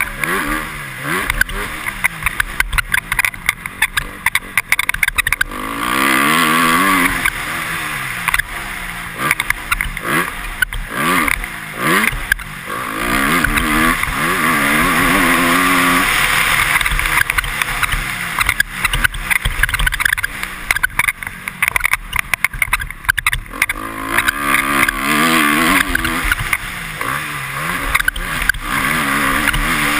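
2013 Honda CRF250R's single-cylinder four-stroke engine revving up and falling back again and again as it is ridden hard around a motocross track, with repeated knocks and buffeting over the bumps.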